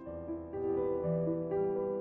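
Background music of slow, held keyboard chords, the notes changing every half second or so.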